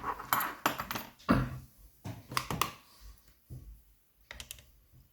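Metal lock picks and tension tool being drawn out of a 5-lever mortice lock and handled, a series of irregular light metallic clicks and scrapes.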